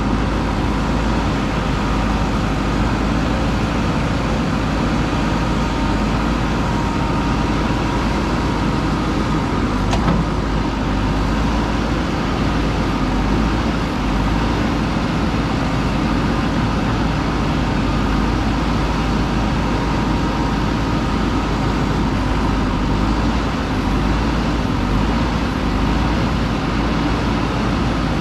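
JCB backhoe loader's diesel engine running steadily under working load while digging, with a single brief knock about ten seconds in.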